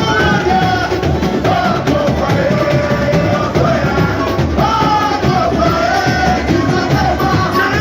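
Samba-enredo: a singing voice carrying the melody over the dense, continuous drumming of a samba school bateria.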